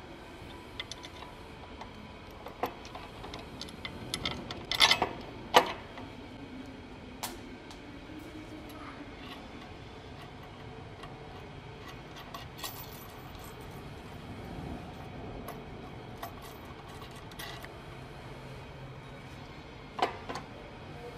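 Scattered metallic clinks and clacks of steel hardware being handled as a conveyor belt cleaner's spring tensioner is fitted onto its mounting bracket, with a cluster of louder clanks about five seconds in and another near the end.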